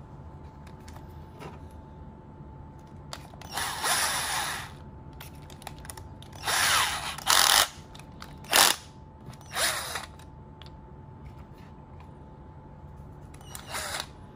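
Cordless drill run in five short bursts of whirring, with ratcheting from its keyless chuck as a drill bit is tightened in it.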